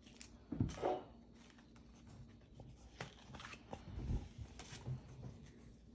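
Pokémon cards and a torn foil booster-pack wrapper being handled at a table: a brief louder rustle under a second in, then faint rustling and small taps.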